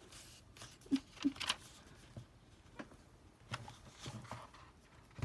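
Soft rustling and brushing of paper as hands press and bend back the pages of a thick handmade junk journal, with a few light clicks and taps.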